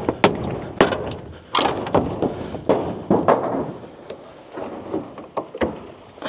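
A hammer striking a nailed wooden shipping crate, with wood cracking as boards are knocked loose. The blows come irregularly, close together at first and more spread out in the second half.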